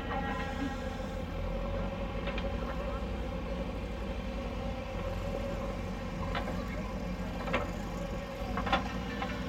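JCB 3DX backhoe loader's diesel engine running steadily as the backhoe arm digs and swings, with a few short sharp knocks in the second half.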